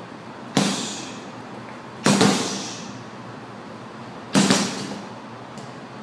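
Gloved punches landing on a hanging heavy punching bag: three hard smacks, roughly a second and a half to two seconds apart, each with a short echo.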